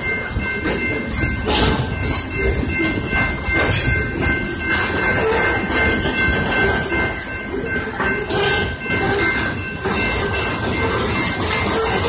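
A freight train of loaded covered hopper cars rolling past close by: a steady rumble of wheels with irregular knocks and clicks as the wheels cross the rail joints and crossing. Several steady high ringing tones sound throughout.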